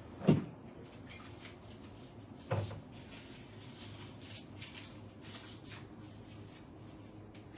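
Two short thumps, one right at the start and another about two and a half seconds in, over a quiet room with a steady low hum.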